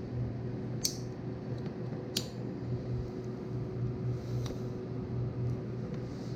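Small sharp clicks and snips of wires being fitted into a connector by hand: two crisp clicks about one and two seconds in, and a softer one near four and a half seconds, over a steady low hum.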